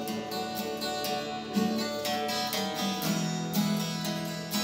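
Acoustic guitar strummed in a steady country rhythm, about two strums a second, with no singing.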